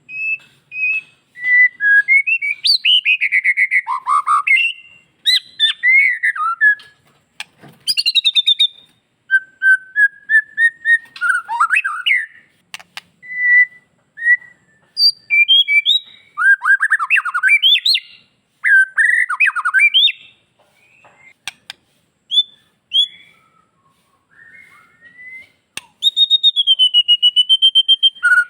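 White-rumped shama (murai batu) singing a varied song packed with mimicked calls: clear whistles, sweeping glides and trills in phrases separated by short pauses, with a fast run of rapidly repeated notes near the end.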